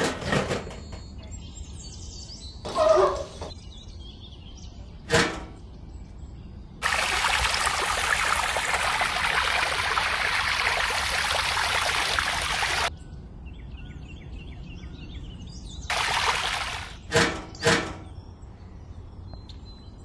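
Water gushing from a toy fuel-pump nozzle into a small plastic tanker for about six seconds, starting and stopping abruptly. A few short plastic clicks from handling the nozzle and lid come before and after it.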